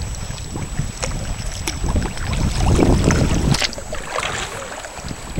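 Kayak paddle strokes splashing and water moving along the hull in calm sea, as an irregular run of short splashes over wind rumbling on the microphone.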